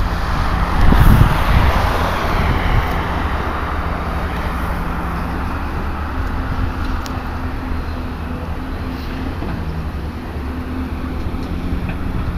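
A car passing on the road, its tyre noise rising and fading away over the first two or three seconds, over the steady running of a Hyundai R360LC-7A tracked excavator's diesel engine as it digs.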